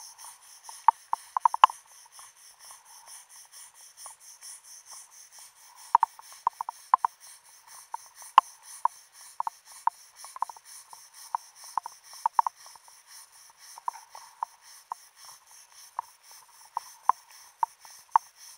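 Wire brush scrubbing concretion off a wreck's propeller underwater, heard as irregular sharp scraping clicks, sometimes in quick clusters, over a faint steady hiss.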